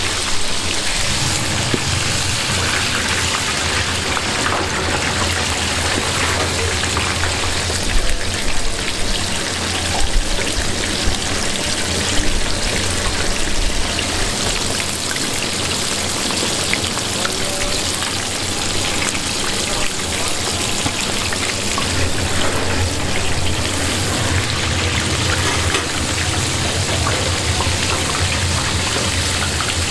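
Whole squid deep-frying in a vat of hot oil: a steady, dense sizzle of bubbling oil, with a low hum underneath.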